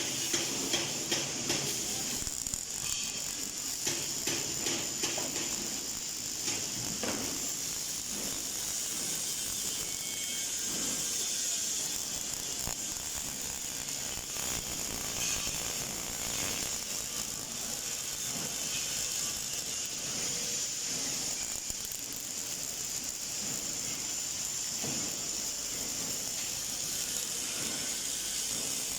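Robotic MIG welding arc crackling steadily over a constant high hiss.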